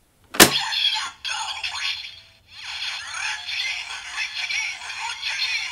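DX Gamer Driver toy transformation belt playing its electronic transformation audio through its small speaker: a sharp click about half a second in, then a synthesized announcer voice chanting game calls such as "Meccha game!" over tinny music.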